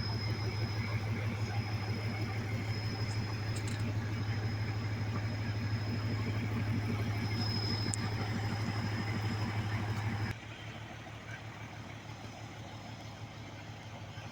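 A motor vehicle's engine idling close by, a steady pulsing low hum with a thin high whine above it; the level drops sharply about ten seconds in and a fainter hum carries on.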